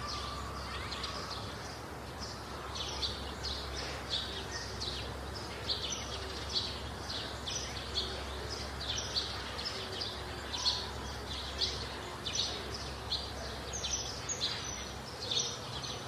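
Birds chirping over and over, short high falling calls about once a second, above a steady low hum.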